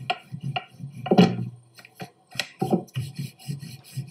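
Wooden rolling pin rolling out naan dough on a countertop: a run of short rubbing strokes and light knocks as the pin goes back and forth, with one louder knock about a second in.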